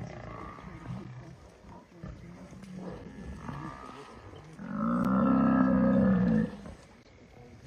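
Lions growling as they hold down an African buffalo in shallow water. About five seconds in comes one long, deep bellow lasting about two seconds, the loudest sound, from the buffalo under attack.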